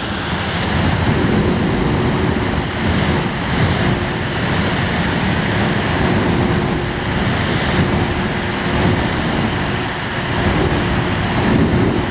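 Small electric fan running steadily, a loud even rush of air with a faint steady hum.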